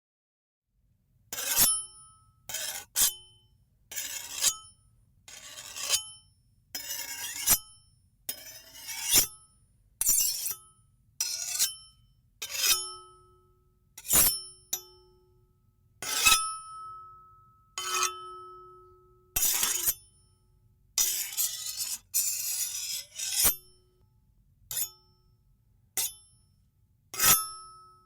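Two small metal knife blades scraped against each other in a string of about twenty separate strokes, most short and sharp, a few drawn out as longer scrapes. Many strokes leave a bright metallic ring hanging briefly.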